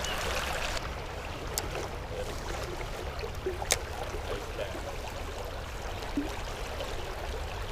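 River water running steadily over rocks, with a sharp click about three and a half seconds in.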